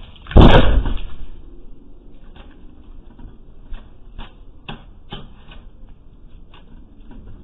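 Two animals scuffling at a glass patio door, picked up by a security camera's microphone: a loud bang-like burst about half a second in, then scattered sharp knocks and clicks.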